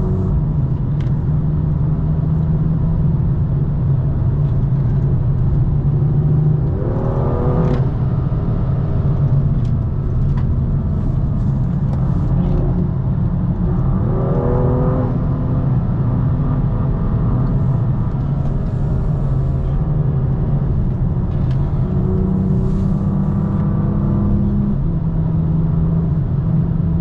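BMW M2's turbocharged straight-six engine under way at speed, its pitch climbing sharply twice, about seven and fourteen seconds in, as it revs up through the gears, with a steady drone between.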